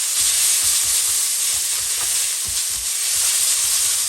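Egg noodles sizzling hard in a hot, oiled wok as they are stir-fried, with repeated dull knocks as they are worked around the pan.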